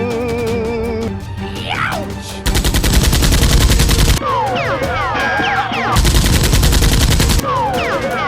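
Two bursts of rapid automatic gunfire, each about a second and a half long and about three seconds apart, over action music with wavering held tones and falling, sliding notes.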